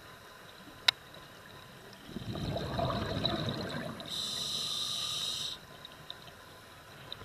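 Scuba diver breathing through a regulator underwater: a burst of exhaled bubbles gurgling for about two seconds, then the hiss of an inhalation through the regulator for about a second and a half. A single sharp click comes about a second in.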